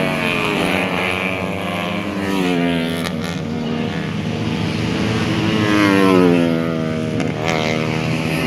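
Four-stroke 130cc tuned racing motorcycles running at high revs as they pass along the track. The engine pitch rises and falls over and over, with louder passes about two and a half and six seconds in.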